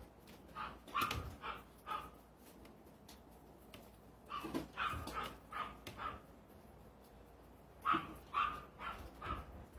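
A dog barking in three quick runs of about four or five barks each, a few seconds apart.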